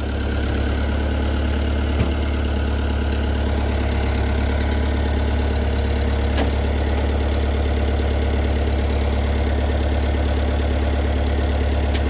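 Tractor engine running steadily at idle, with a few faint clicks over it.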